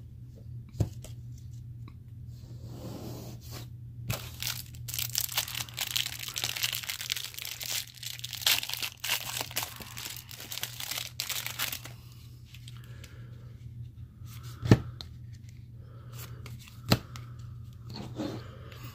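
Thin clear plastic wrapper crinkling and tearing as it is peeled off a stack of trading cards, with two sharp taps near the end. A steady low hum runs underneath.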